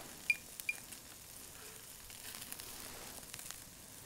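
Pork sizzling on a grill grate over an open flame, a faint steady hiss with scattered small pops. Two brief metallic clinks come near the start.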